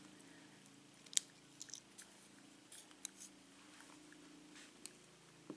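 Faint scattered metallic clicks and ticks of small lock parts, the pins and master wafers of a Sargent pin-tumbler plug being worked out during disassembly. The sharpest click comes about a second in, with a few more around the middle, over a faint low hum.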